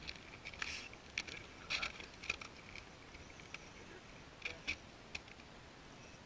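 Faint crunching footsteps on snow-covered ice close by: four steps about half a second apart, then a few more near the end.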